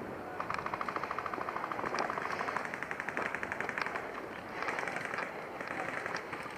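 Airsoft guns firing on full auto: several short bursts of rapid, evenly spaced shots.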